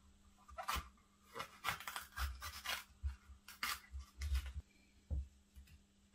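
Kitchen knife cutting a red bell pepper on a plastic chopping board: irregular crisp cuts through the flesh and taps of the blade on the board, with a few soft knocks.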